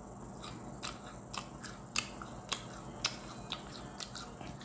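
A person chewing a fried flour pancake close to the microphone: a string of small sharp mouth clicks and smacks, roughly two a second.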